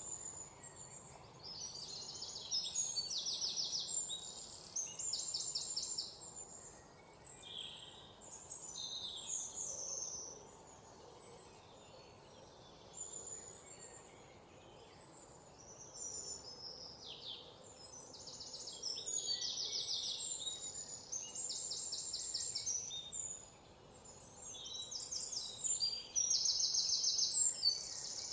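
Songbirds chirping and singing fast trills, in bursts of a second or two with short lulls, over a faint steady background hiss.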